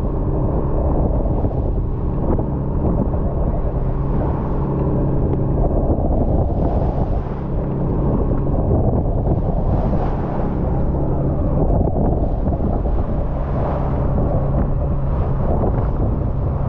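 Fishing boat's engine running steadily, with wind and water noise swelling a few times over it.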